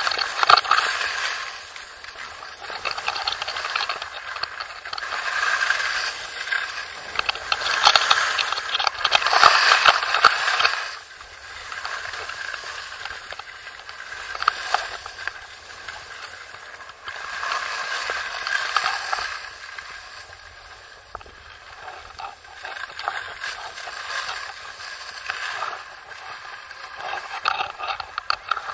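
Skis sliding and scraping over packed snow: a hissing scrape that swells and fades with each turn, with small scratchy clicks.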